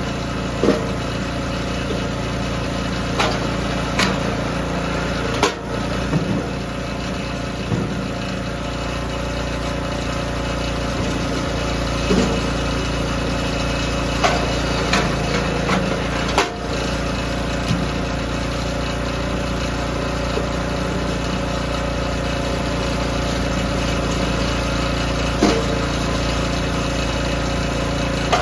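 DR K28 Pro kinetic log splitter's small gas engine running steadily as hardwood rounds are split, with a handful of sharp knocks and cracks as the splitter fires and the wood gives way.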